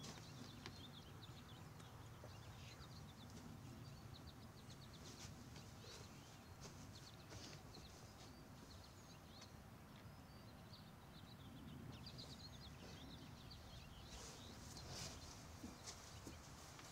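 Near silence: faint outdoor ambience with a low steady hum and distant birds chirping in short bursts.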